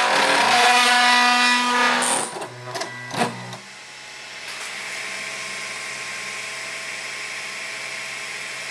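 Overlord Pro delta 3D printer running. A loud pitched mechanical whine lasts about two seconds, followed by a few short bursts, then a steady, quieter whirring hum with a thin high whine: the noise problem the owner is documenting.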